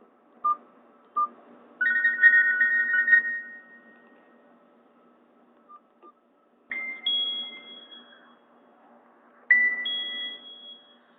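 Nokia N81 ringtones played through a Nokia 216's small loudspeaker. Two short beeps are followed by a warbling two-note tone lasting about a second and a half. Then come two bright chime notes, about three seconds apart, each ringing out.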